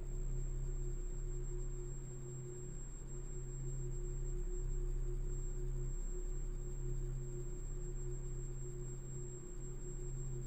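Sustained electronic drone of steady pure tones, low and middle pitches held together with a thin high whine above, unchanging throughout: an eerie suspense soundtrack.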